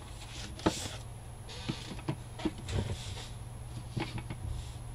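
Paper cards being handled and set down on a plastic craft sheet over a cutting mat: light rustles and taps, with one sharp tap a little under a second in and a few softer ones after.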